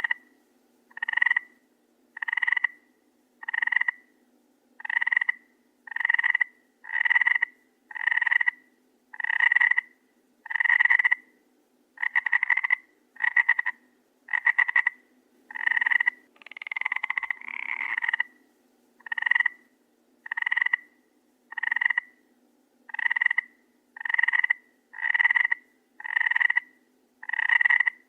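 A frog croaking over and over, about one call every second or so, each call a short rasping note; some calls break into a fast rattle, and one in the middle runs longer.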